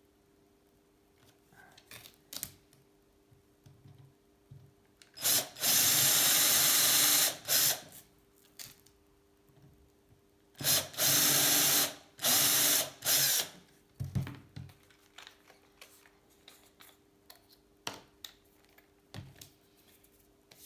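Power drill running in three runs of one to two seconds each, boring holes in a bicycle seat post, with small clicks and knocks of handling between the runs.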